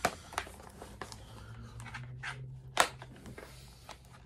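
Plastic DVD cases being handled and shuffled together: several sharp clacks, the loudest about three seconds in, over soft rubbing and rustling.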